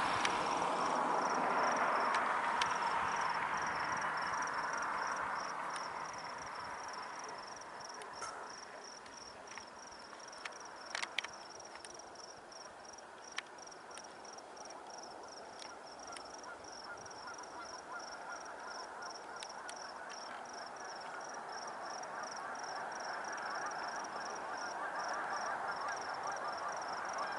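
Crickets chirping in a steady, evenly pulsing high trill. Under it is a broad hiss of distant noise that fades over the first few seconds and swells again near the end, with a few faint clicks partway through.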